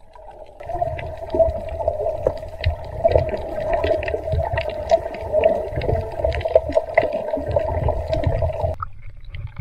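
Muffled underwater sound picked up by a submerged camera: a steady hum over a low rumble, with scattered faint clicks and crackles. It cuts off suddenly near the end as the camera breaks the surface.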